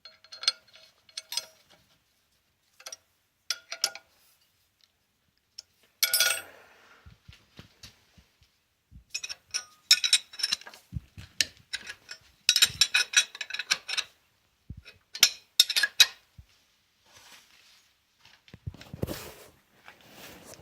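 Metal parts and tools clinking and clattering as they are handled, in irregular bursts of short ringing strikes with a few duller knocks.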